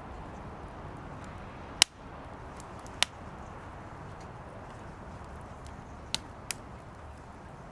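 Firewood burning in a fire pit: a steady low rush of flame with sharp pops and crackles of the wood. The two loudest pops come about two and three seconds in, and two smaller ones come near the end.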